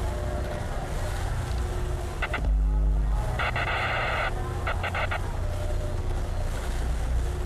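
Electronic music: a deep, steady bass drone under a looping figure of quick stuttering clicks followed by a buzzing synth chord, repeating about every five seconds.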